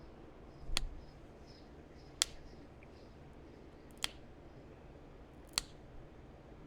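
Four sharp clicks about a second and a half apart: pressure flaking on a small heat-treated chert point, flakes snapping off the edge during fine detail work.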